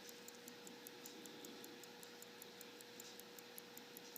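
Faint, quick, even ticking of an antique Appleton, Tracy & Co. pocket watch movement, about five ticks a second: the watch is running.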